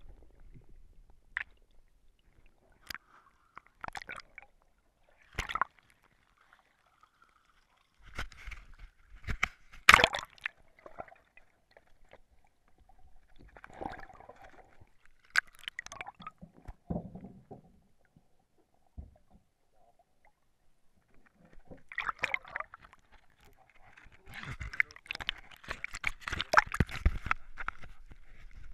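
Muffled knocks and bubbling heard through an underwater camera housing, in irregular bursts with quiet gaps. Near the end, denser water splashing and sloshing as the camera comes up through the surface.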